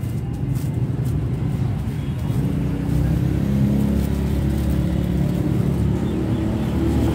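A motor vehicle engine running close by with a steady low rumble, growing a little louder and steadier about three seconds in.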